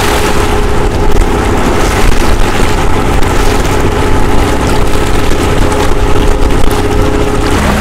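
Engine of a small diving boat working just offshore, running with a steady hum that drops in pitch near the end, over the rumble of wind on the microphone.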